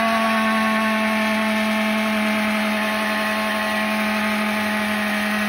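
Hose-driven Clean N Roll paint roller cover cleaner running: the roller cover spins inside the canister with a steady whine, and rinse water sprays out into the bucket. This is the rinse stage, run until the water runs clear.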